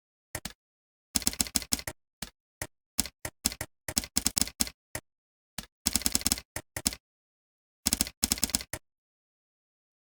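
Typing on a computer keyboard: quick bursts of keystroke clicks with short pauses between, stopping near the end.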